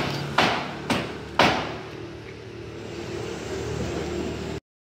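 Street background with motor traffic hum. Sharp knocks come about twice a second in the first second and a half, then the hum runs on steadily until the sound cuts off abruptly near the end.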